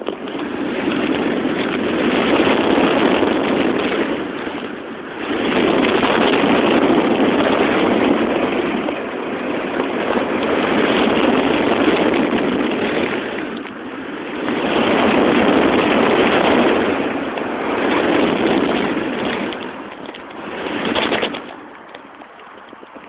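Wind rushing over the microphone of an HTC Diamond phone carried aloft on a kite, a rough, loud noise that swells and eases every few seconds and drops lower near the end.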